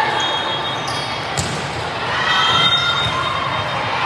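Gym noise during an indoor youth volleyball match: sneakers squeaking on the court, and a sharp ball hit about one and a half seconds in, all echoing in a large hall.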